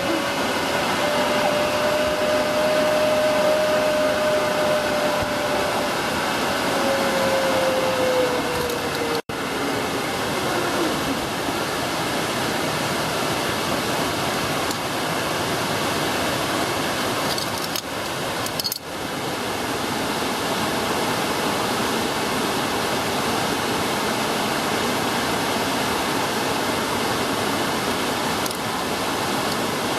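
A zip-line trolley's pulley whines along the steel cable for the first several seconds, its pitch rising slightly and then falling away. Under it runs a steady rushing roar of noise that carries on after the whine fades.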